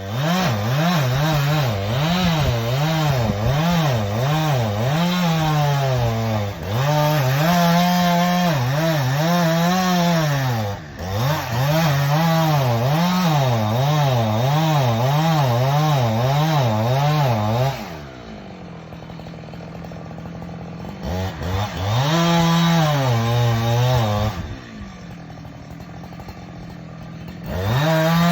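Chainsaw cutting wood, its engine speed rising and falling quickly under load. About two-thirds of the way in it drops back to idle, revs hard for a few seconds, idles again, and is back at full throttle near the end.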